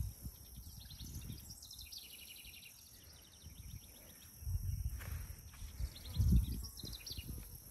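Insects trilling in short bursts of fast, evenly repeated high chirps, with low gusts of wind rumbling on the phone microphone about halfway through and again near the end.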